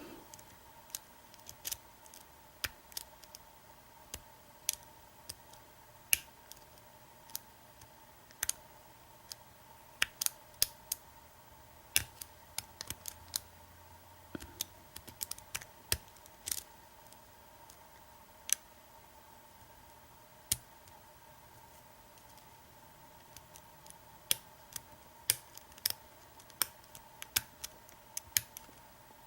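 Small, sharp metallic clicks at irregular intervals, some in quick clusters, from a lock pick and tension wrench single-pin-picking the pins of an American Lock 1100 padlock. Under them runs a faint steady hum.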